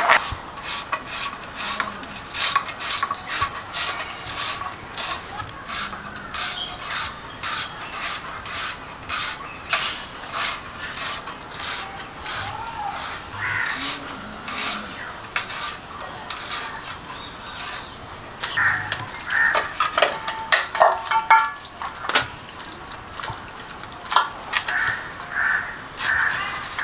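Crows cawing repeatedly, in harsh clusters. Through the first half there is also a quick run of short scraping or tapping sounds, about two or three a second.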